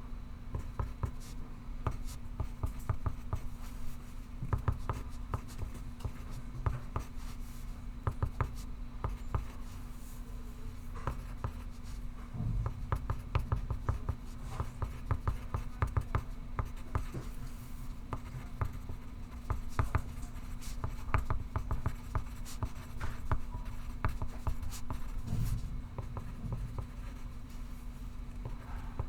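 Pencil scratching on paper in quick, irregular strokes, as someone writes without pause. A steady low hum runs underneath.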